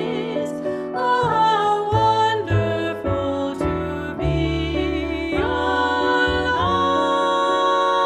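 Women's voices singing in harmony, accompanied by piano and double bass.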